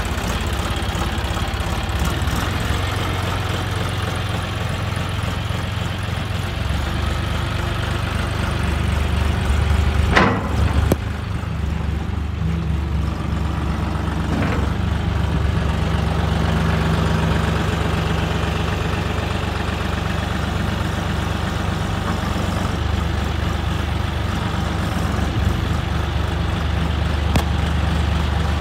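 John Deere 5310 tractor's three-cylinder diesel engine running steadily while it works the front loader's hydraulics. The engine note gets heavier about a quarter of the way in, with a brief loud knock about ten seconds in and a lighter one a few seconds later.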